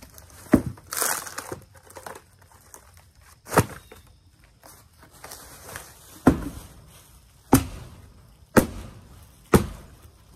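Old shed-floor particle board being broken into pieces: about six sharp cracks and thuds at uneven intervals, with a brief crumbling rustle about a second in.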